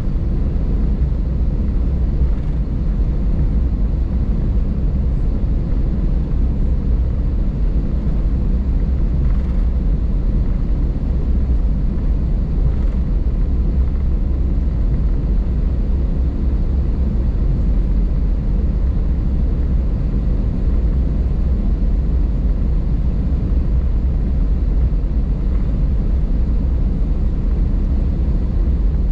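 Steady low rumble inside the cabin of an Airbus A220 taxiing, from its Pratt & Whitney PW1500G geared turbofan engines and the airframe rolling along the taxiway.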